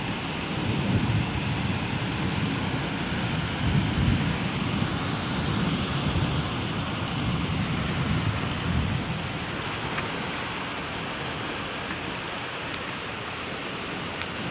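Thunder rumbling, swelling about a second in and again around four seconds, then fading away by about nine seconds, over a steady hiss.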